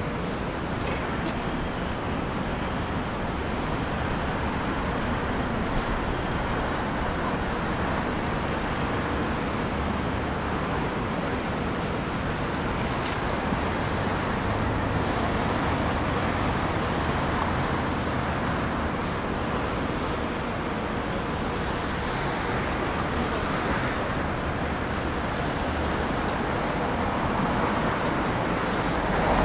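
Steady city road traffic: cars and other vehicles running along a busy street.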